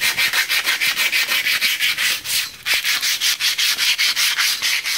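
Hand sanding of a primed steel axle housing, fast back-and-forth strokes of about five a second with a brief pause partway through. The surface is being scuffed so that the fill primer will bite.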